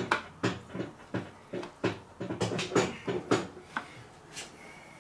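Metal transmission parts clinking and knocking inside an E4OD automatic transmission case as internals are wiggled and spun loose by hand: a quick run of sharp clinks that dies away about four and a half seconds in.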